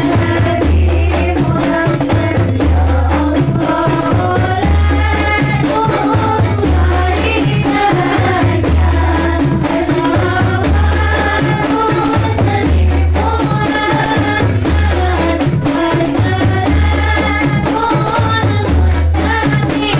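Rebana frame-drum ensemble playing a steady beat while a group of women sing into microphones, amplified through a PA sound system. A deep boom comes about every two seconds under the drum strokes and singing.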